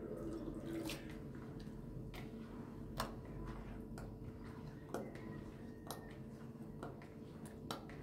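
Irregular sharp clicks or taps, roughly one a second, the loudest about three seconds in, over a low steady hum.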